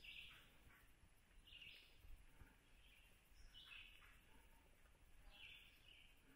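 Near silence with a few faint, short, high bird chirps, scattered irregularly.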